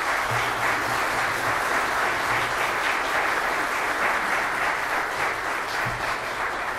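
A congregation applauding steadily, dense clapping that eases off slightly near the end.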